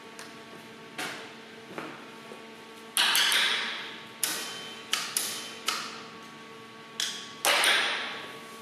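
Metal clanking on a steel welding bench as metal parts are handled: a run of sharp knocks, the loudest two about three seconds and seven and a half seconds in, each ringing on for about a second.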